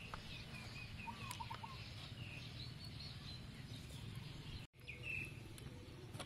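Birds chirping in short wavering calls, several in the first half and one more near the end, over a low steady background hum; the sound drops out for an instant just before five seconds.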